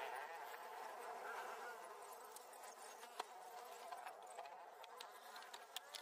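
Light clicks of a screwdriver working the plastic top panel of a washing machine, over a faint, wavering buzzing hum.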